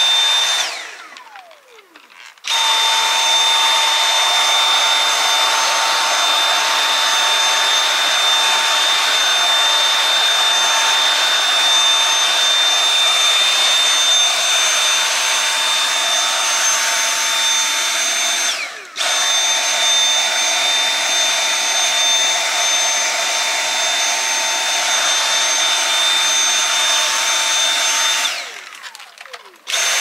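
Dyson cordless stick vacuum running with a steady high whine as its brush tool sucks loose hair from a cat's coat. About a second in the motor is switched off and winds down with a falling whine, then starts again abruptly; it cuts out for an instant midway, and near the end winds down once more before restarting.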